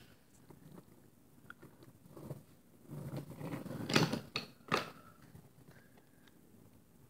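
Toy subway cars pushed by hand along a wooden toy train track: faint scattered ticks, then a short rattling roll from about three seconds in, with two sharp clacks close together, the loudest sounds.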